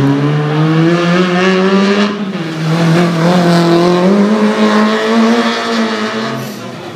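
Small hatchback slalom race car's engine revving hard as it pulls away, the pitch climbing, dropping at a gear change about two seconds in, then climbing again. The sound fades near the end as the car draws away.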